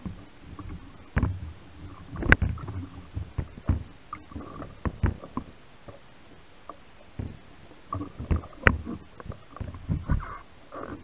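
Surface water sloshing and slapping against a waterproof camera housing mounted on a wooden speargun, heard as irregular low thumps and splashy knocks with a few sharper clicks.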